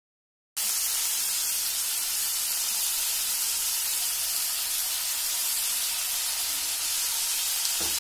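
Mixed vegetables sizzling in hot olive oil in a nonstick wok as they sauté: a steady hiss that starts abruptly about half a second in.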